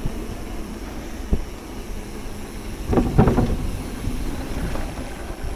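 Low wind rumble buffeting the microphone. A sharp knock comes about a second in and a cluster of louder knocks and rattles around three seconds in.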